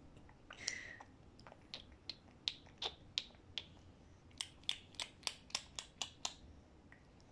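A series of sharp clicks made with the mouth, well over a dozen. They come spaced out at first, then speed up to about three a second for a couple of seconds before stopping.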